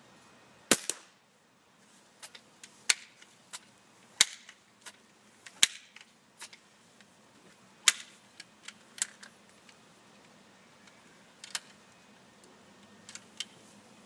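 A sharp, shot-like crack about a second in with a short echo after it, followed by a string of lighter cracks and clicks at irregular intervals, a few of them nearly as loud.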